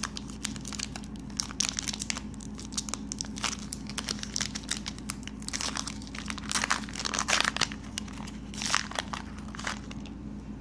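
Crinkly wrapper of a Garbage Pail Kids sticker-card pack being handled and torn open by hand, with irregular crackles and rips, thickest in several clusters.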